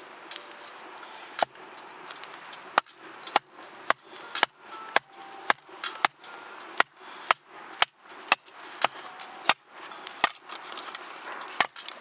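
Sharp wooden knocks repeating about twice a second: firewood being chopped and split into kindling to start a campfire.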